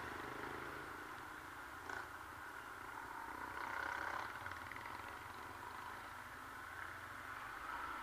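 Yamaha R15 V3 motorcycle being ridden at low speed: a steady rush of wind and road noise with the engine low and muffled beneath it, swelling a little about halfway through.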